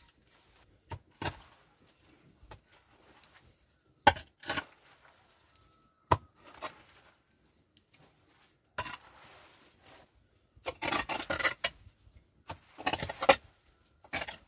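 Wooden-handled metal hoe knocking and scraping across a dung-and-straw shed floor: a few sharp knocks in the first half, then longer rasping scrapes in the second half.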